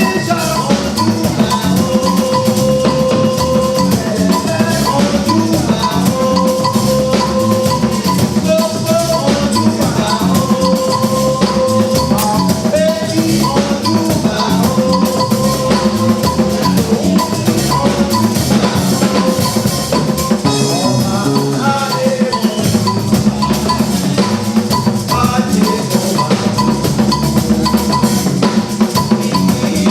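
Music with a steady drum beat and a repeating melody line, running without a break.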